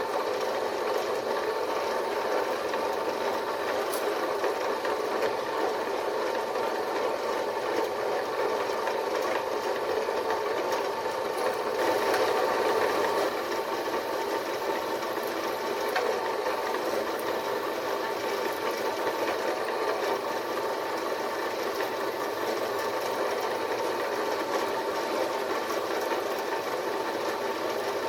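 Small bench drill press running steadily, its motor and spindle giving an even hum, while a 2.5 mm drill bit is fed through a coupling.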